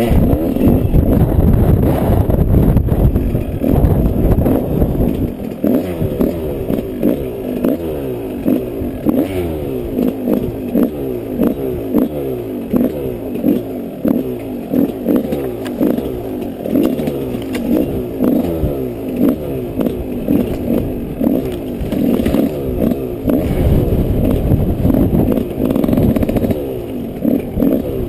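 Yamaha 125 off-road motorcycle engine running under load, its pitch climbing again and again in short rises as the throttle is worked. A heavy low rumble covers it for the first few seconds and again near the end.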